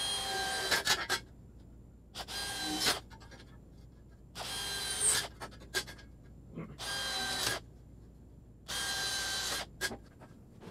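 Handheld angle grinder run in five short bursts of about a second each against the plasma-cut steel of a grinder rack, a whining motor with a gritty edge on every pass, the kind of short passes used to clean up cut edges.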